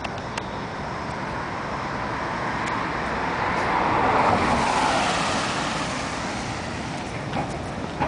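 A car driving past on a city street: tyre and engine noise that swells to a peak about four to five seconds in and then fades, over steady traffic noise.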